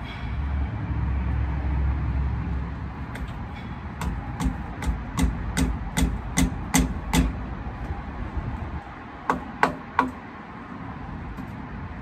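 New round turn-signal light being tapped into its rubber grommet on a semi truck's rear frame: a run of about ten sharp taps, roughly three a second, then three more a couple of seconds later.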